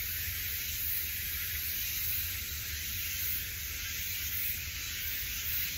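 Outdoor nature ambience on a wooded mountainside: a steady, even hiss with a low rumble underneath and no distinct calls or events.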